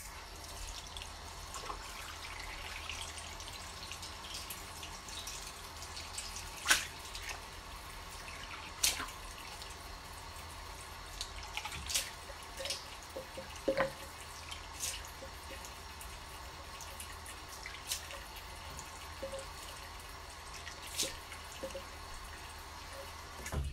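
Bathroom sink tap running steadily, with a dozen or so short sharp splashes and clicks scattered through as soap lather is rinsed off after a shave.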